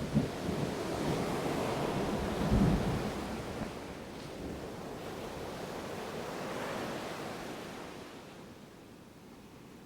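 Ocean surf washing in and drawing back, with a brief low thud about two and a half seconds in. The surf eases to a quieter wash near the end.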